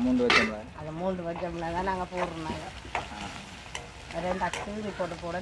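A metal spoon stirs shallots and green chillies frying in oil in a metal wok, with a steady sizzle and sharp scrapes and knocks of the spoon on the pan now and then. A person's wordless voice sounds in long wavering tones underneath.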